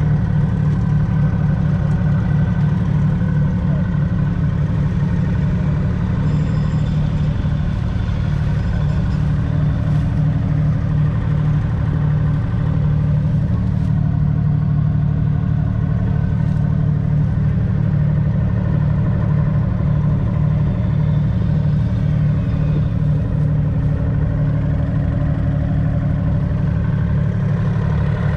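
The 6.2-litre six-cylinder diesel engine of a 1970 Ford County 1004 Super Six 4WD tractor idling steadily, heard close up.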